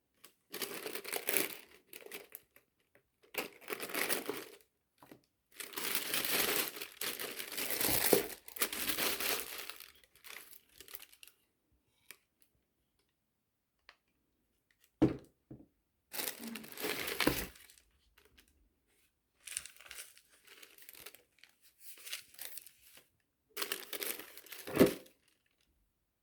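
Packaging being opened and handled while unpacking a food subscription box: paper and plastic crinkling and tearing in several separate bouts. There is a sharp knock about fifteen seconds in and a louder thump near the end, as items are set down.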